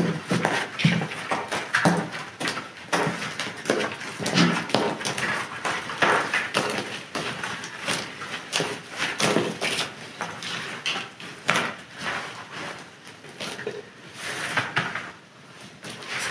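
Clods of mud and small stones dropped and patted onto a rug, with gloved hands scraping and spreading loose dirt over it: irregular soft thuds and knocks with gritty rubbing between them.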